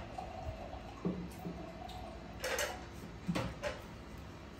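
A few small clicks and taps of a young monkey's hands picking at food on a plate, with a short rustle about two and a half seconds in.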